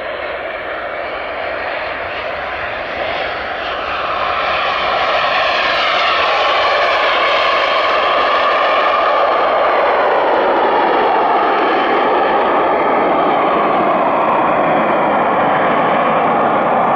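Jet engine of a homebuilt Cozy aircraft heard from the ground, a steady roar of noise that grows louder over the first few seconds and then holds loud, with a slow sweep in pitch as the aircraft moves past.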